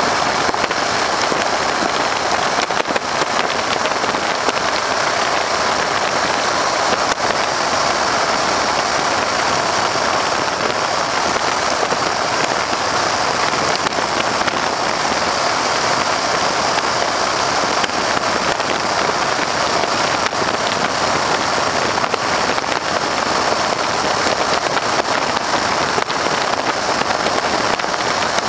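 Steady, even rush of airflow and engine noise in the open cockpit of a PT-13 Stearman biplane in flight, the wind pouring over the microphone.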